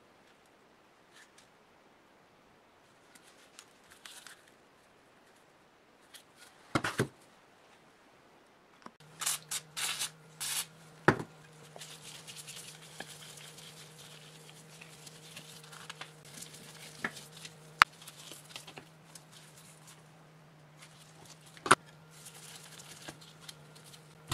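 Hand work on a rusty old air compressor cylinder: a few sharp metal knocks and clinks, then a long spell of scratchy scraping of dirt and rust off the cylinder with a metal tool, with more single clinks. A low steady hum sits underneath from about a third of the way in.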